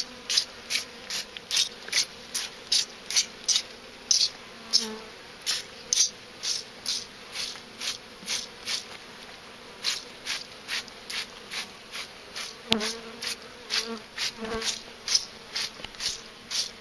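Spray bottle squirting a sugar-water and Honey-B-Healthy drench in quick repeated hissing squirts, about two or three a second. Honeybees buzz in the open hive underneath.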